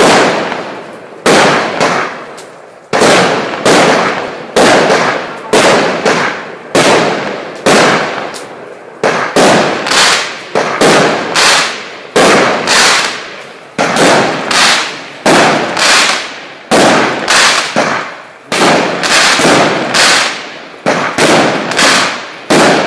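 Celtic Fireworks 'Hanky Panky' 36-shot, 20mm firework cake firing shot after shot in a steady sequence, about one to two a second. Each shot is a sharp bang that trails away before the next.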